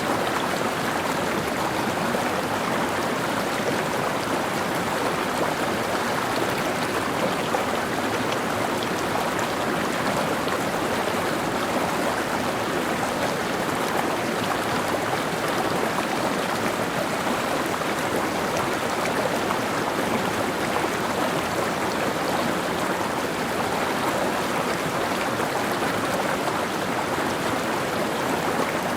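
Mountain stream flowing steadily over rocks, a constant rushing and babbling.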